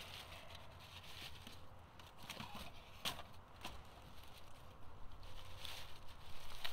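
Rustling of a jacket and dry leaf litter as a person moves close by, with two sharp knocks about three seconds in, half a second apart.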